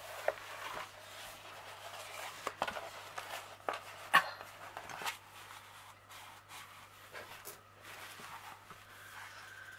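Plastic cover film on a diamond-painting canvas rustling and crinkling as it is pressed and smoothed flat by hand, with irregular crackles and a sharper crackle about four seconds in.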